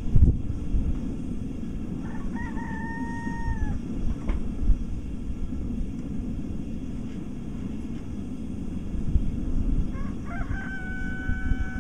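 A rooster crows twice, about two seconds in and again near the end, each crow a held call that drops off at its end. A steady low rumble runs underneath.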